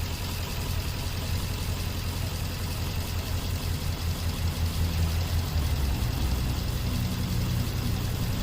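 2005 Nissan Armada's 5.6-litre V8 idling with a cylinder 8 misfire (code P0308); the mechanic suspects that cylinder is barely firing.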